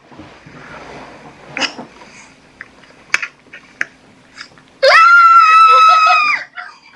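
A woman's loud scream, held at a steady high pitch for about a second and a half, starting about five seconds in, let out laughing just after a small poodle kisses her on the lips. Before it, only faint clicks and rustling.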